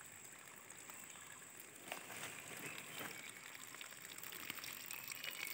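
Faint trickle of water seeping out at the base of a tree, with a few light clicks.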